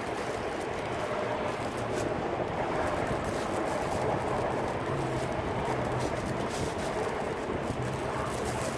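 Wind blowing on the microphone: a steady rushing noise with a faint low hum beneath it.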